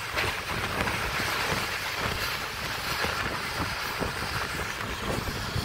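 Passenger train running at full speed: a steady rush of wheel and running noise with a low rumble underneath.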